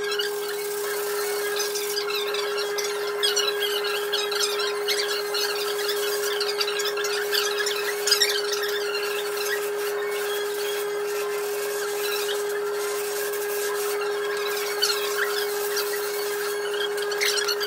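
Sped-up workshop audio from fabricating a car dash: a steady hum under quick, squeaky high-pitched chirps and scrapes of tool work.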